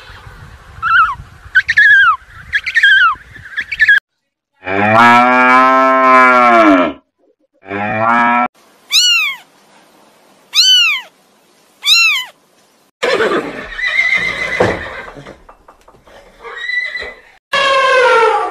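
A string of different animal calls spliced one after another with abrupt cuts. Short high calls open it, then a long cow moo about five seconds in and a shorter moo just after, four high falling whistled calls, and rougher cries near the end.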